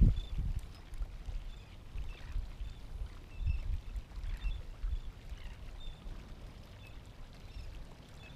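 Outdoor wind rumbling unevenly on the microphone, with water lapping against the rocks at the water's edge. Faint short high chirps are scattered throughout.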